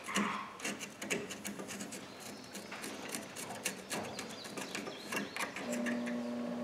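Ratchet wrench clicking in quick irregular runs as it turns bolts on a go-kart's rear axle assembly. A steady motor hum starts near the end.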